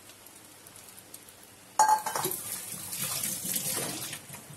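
A utensil clinks sharply against a nonstick frying pan, then about two and a half seconds of loud sizzling and clatter follow as the egg, onion and green chilli omelette mixture fries in mustard oil.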